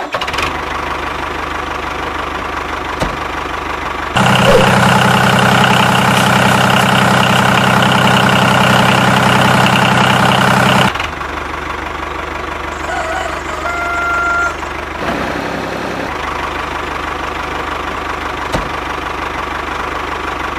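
Tractor engine running steadily, much louder from about four seconds in until about eleven seconds, with a brief higher tone just after that.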